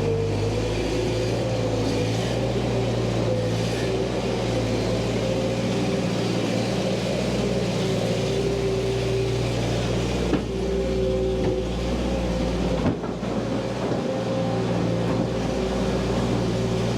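Skid steer engine running steadily at constant speed while it works, with a couple of light knocks partway through.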